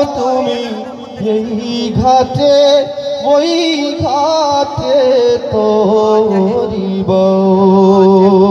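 A man singing a Bengali Islamic gojol in a long, wavering ornamented line with no clear words, ending on a long held note.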